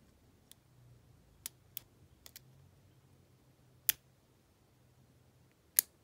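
Sparse, irregular small metallic clicks of a hook pick working the pins inside a six-pin Abus 72/40 padlock held under light tension, with two louder clicks about four seconds in and near the end.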